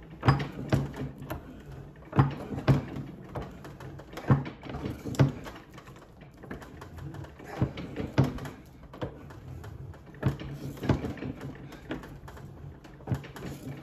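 Hand-operated ring stretcher being worked to stretch an annealed copper coin ring: irregular clicks and creaks from the tool and the ring, about one or two a second.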